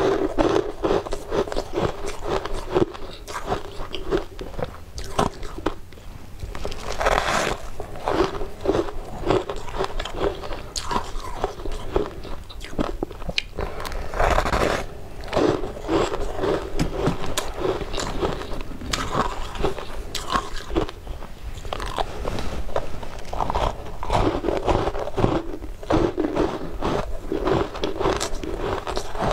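A person biting and chewing frost-covered chunks of ice: a continuous run of crisp crunches and crackles.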